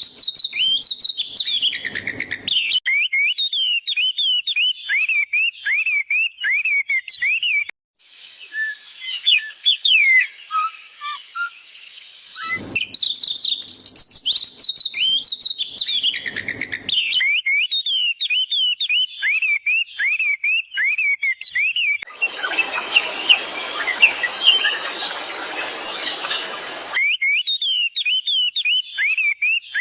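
Bird chirping in quick, high, repeated chirps, several a second. A brief cut about a quarter of the way in gives way to a few seconds of softer, more varied chirps before the rapid chirping returns. Near three quarters of the way through, a loud rushing noise covers it for about five seconds.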